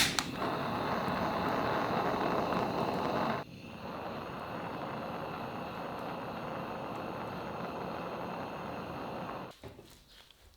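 A power tool running steadily, louder for about the first three seconds, then dropping to a lower level, and stopping about a second before the end.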